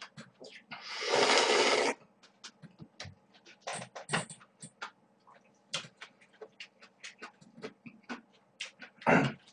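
A long, loud slurp of cold buckwheat noodles about a second in, followed by many small wet chewing and lip-smacking clicks, and another short loud slurp near the end.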